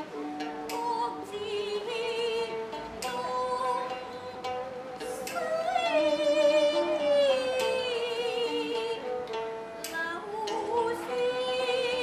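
Film song: a slow melody sung in Chinese with a wavering, vibrato-laden voice over plucked and bowed string accompaniment.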